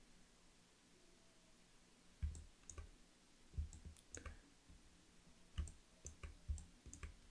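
Faint, irregular clicks of a computer mouse, about ten of them, starting a couple of seconds in, with quiet room tone in between.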